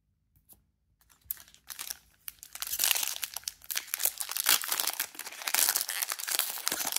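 Foil wrapper of a Topps Chrome trading-card pack crinkling as it is torn open along its crimped end. It starts softly about a second in and grows louder and denser.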